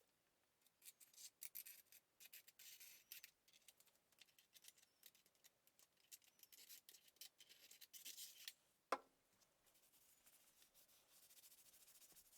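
Faint hand-work rubbing and scraping on the sewing machine, in irregular short strokes, with one sharp click just before nine seconds in and softer, steadier rubbing after it.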